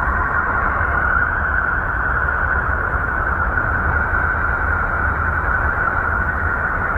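Sonified spacecraft radio recording of a planet's space environment, heard as a steady rushing drone with a brighter hiss band over a low rumble.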